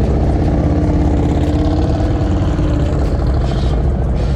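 Harley-Davidson V-twin motorcycle engine running steadily at idle, with a fast, even low pulse.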